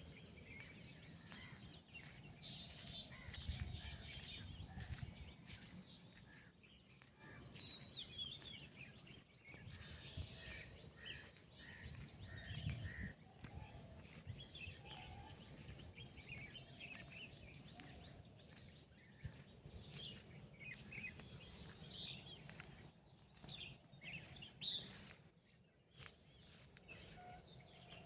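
Faint birdsong: many short chirps and twitters from several birds, over a low background rumble that swells a few times.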